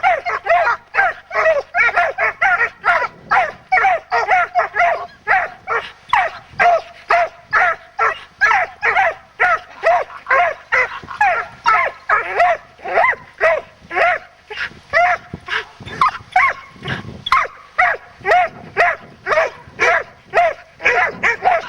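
Dog barking and yelping excitedly in a rapid, unbroken string, about two barks a second.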